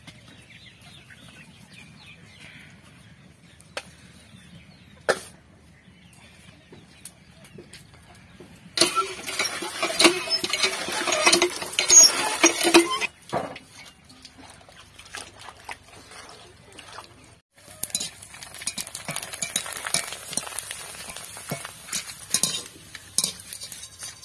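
Water gushing from a pump spout onto chopped leafy greens in a strainer basket, a loud rush lasting about four seconds. Later, oil sizzling as potato pieces fry in an iron wok, with light metal clinks of the frying strainer.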